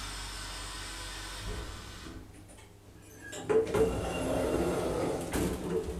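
Steady low hum of a Fries roped hydraulic lift's drive during travel, fading out about two seconds in as the car stops at the floor. About a second later the automatic sliding doors open, a sliding noise lasting about two seconds with a few clicks.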